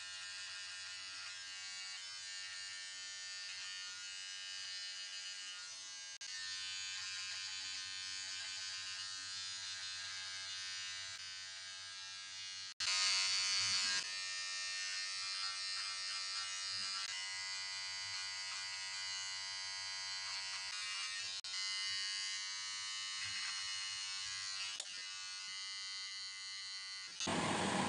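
A cordless electric hair trimmer buzzing steadily as it cuts beard and hair. Just under halfway through, the buzz breaks off sharply, then returns louder and brighter for about a second before settling again.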